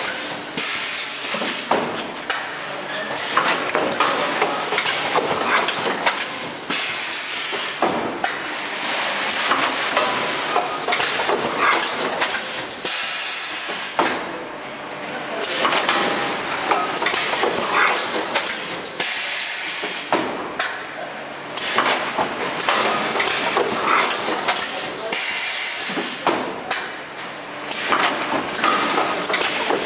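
Fully automatic thermoform fill seal packaging machine running: a dense, continuous clatter of short mechanical knocks and clicks over a hiss of air from its pneumatic cylinders as the stations cycle.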